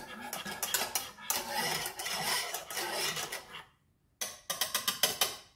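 Wire whisk beating milk, cream, egg yolk and sugar in a saucepan, its wires scraping and clicking against the pan in quick strokes. The whisking stops briefly a little before the end, then picks up with a fast run of strokes.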